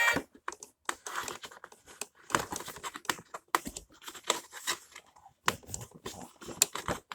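Plastic packaging crinkling and rustling, with irregular sharp clicks and snaps, as plastic packaging screws are twisted out and pulled off a boxed toy.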